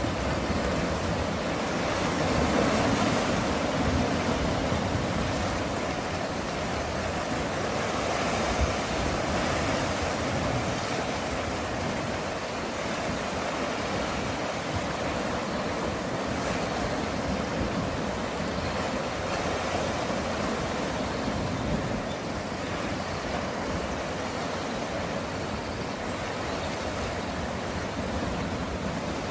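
Sea waves washing against the shore: a steady rush of surf that swells gently now and then.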